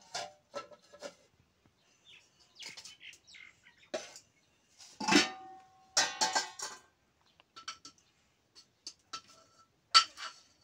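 Steel pots, lids and a ladle clinking and clattering as they are set down and handled on a wood-fired clay stove: a run of separate knocks in small clusters. The loudest comes about halfway through with a short metallic ring, and a sharp clink near the end.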